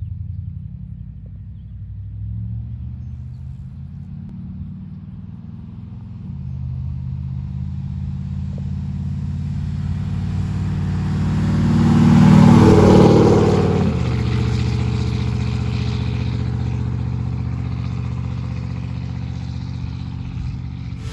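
1951 Chevrolet 3100 pickup with a swapped-in V8 driving past: the engine note builds as the truck approaches, is loudest about twelve seconds in, drops in pitch as it goes by, and fades as it drives away.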